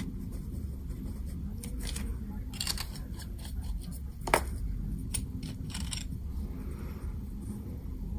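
Clicks and taps of fountain pens being handled: one pen is capped and set down on the desk, and another is picked up and uncapped. A single sharp click about four seconds in is the loudest.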